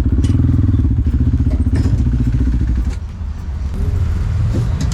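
KTM Duke 390's single-cylinder engine running with a rapid, pulsing exhaust note. About three seconds in it falls to a quieter, lower idle as the throttle is closed.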